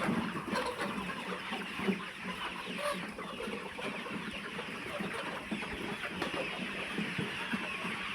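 A large flock of chickens clucking steadily, many birds calling at once.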